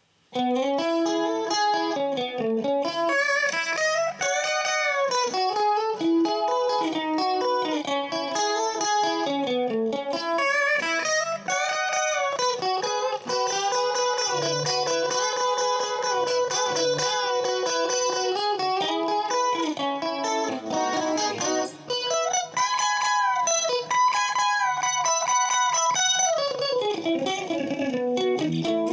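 Strat-style electric guitar, made in Poland, played on a clean tone: a single-note lead melody full of string bends and vibrato, with one note held for several seconds about halfway through.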